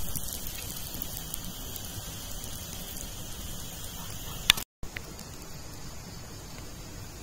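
Skewered pig organs sizzling over a wood fire, a steady hiss with scattered small crackles. It cuts off abruptly about four and a half seconds in, and a quieter, even hiss follows.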